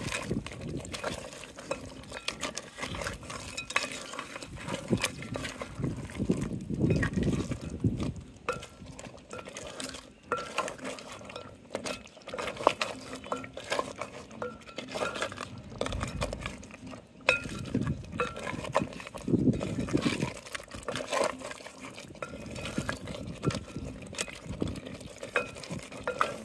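Wooden spatula stirring whole crabs through a thick tomato stew in an aluminium pot, with irregular knocks and clicks of spatula and crab shells against the pot.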